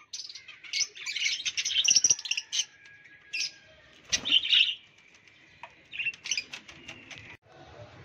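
Lovebirds chirping in rapid bursts of high-pitched calls, loudest in the first two seconds and again around four seconds in, breaking off suddenly near the end. The keeper says they are a little upset.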